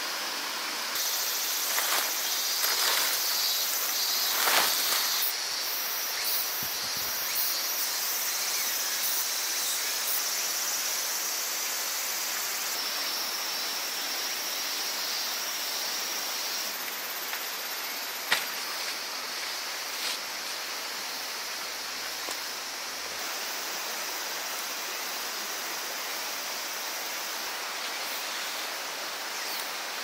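A river flowing steadily, with insects calling in a high steady band over it. A few soft knocks come in the first seconds, and a single sharp click a little past halfway.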